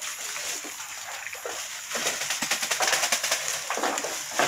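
Rain starting to fall, a patter of many small drops that grows louder about two seconds in.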